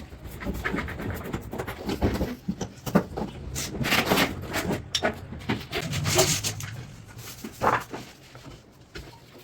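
Laminate sheet being pressed and rubbed down by hand onto freshly glued plywood: irregular rubbing and scraping strokes with small knocks, busiest around the middle.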